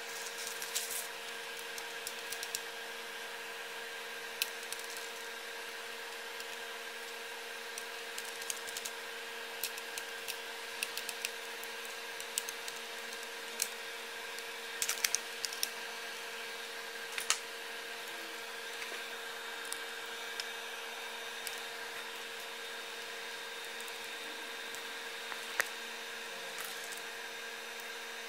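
Scattered light clicks and taps of hands handling and fitting laptop parts, a display panel and internal components, over a steady hum with several held tones.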